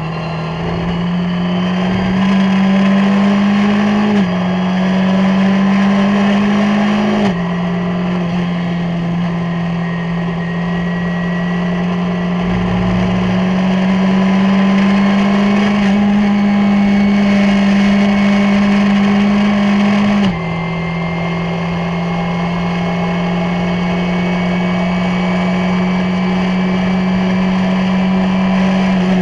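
Skip Barber race car's 2.0-litre SOHC engine under full throttle, heard onboard, accelerating hard. Its pitch climbs steadily and drops at three upshifts, about four, seven and twenty seconds in.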